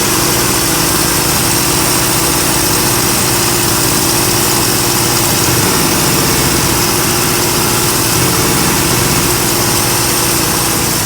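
Engine idling steadily, with a steady high hiss over the running note; the owner suspects an intake vacuum leak.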